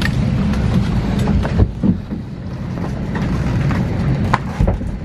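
Cabin ambience of an Airbus A320neo during boarding: a steady low hum from the parked aircraft's air system, with scattered clicks and knocks and a heavier thump about one and a half seconds in.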